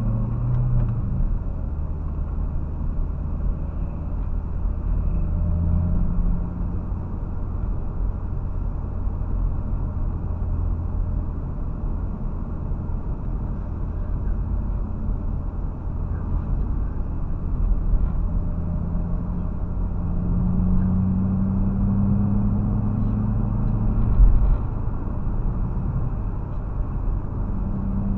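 Car cabin noise while driving: a steady low engine hum and tyre rumble, heard through a dashcam's microphone. The engine note climbs a little about twenty seconds in, and there is a short bump in loudness shortly after.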